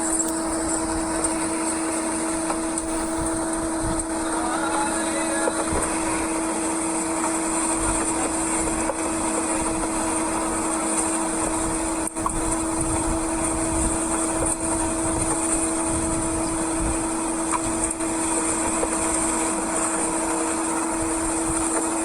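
Fishing boat's engine running steadily with a constant hum, under an irregular low rumble.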